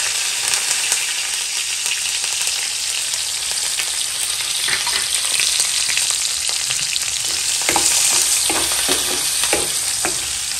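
Green chillies, curry leaves and crushed garlic sizzling in hot oil in a kadhai, a steady spitting hiss. A spatula stirs and scrapes against the pan now and then, mostly in the second half.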